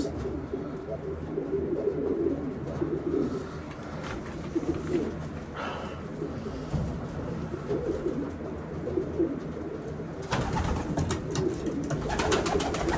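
Pigeons cooing in a loft, low wavering coos throughout. From about ten seconds in, a run of sharp rustling clatter joins them.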